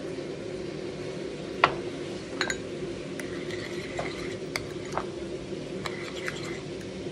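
Metal spoon stirring a thick yogurt mint sauce in a ceramic bowl, with a few sharp clinks where it knocks the bowl, the loudest about a second and a half in. A steady low hum runs underneath.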